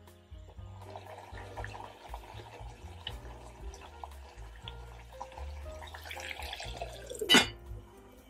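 Watery trickling and bubbling of liquid in an enamel saucepan of pork and onions, then one sharp clank near the end as the enamel lid is set on the pot. Background music plays throughout.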